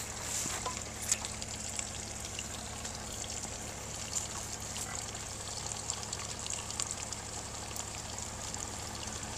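Onions sizzling in hot ghee in a steel pot: a steady fine hiss scattered with small crackles and pops.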